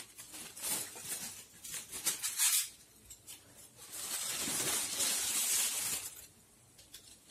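Aluminium foil crinkling as it is peeled off the top of a cooking pot: short rustles over the first three seconds, then a longer steady crackle from about four to six seconds.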